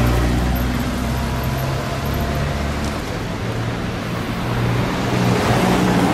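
Road traffic on a snowy street: a steady low engine hum over the hiss of tyres on snow-covered road.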